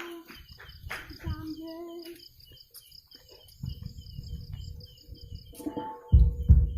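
Insects chirping in a steady rapid rhythm, with some low rumbling. Near the end a loud burst of deep bass from a large outdoor sound system cuts in.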